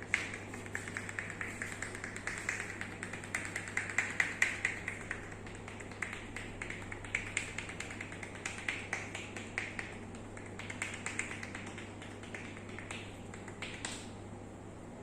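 Quick, rhythmic hand taps and slaps on skin from a percussive arm massage, loudest about four seconds in and thinning out near the end.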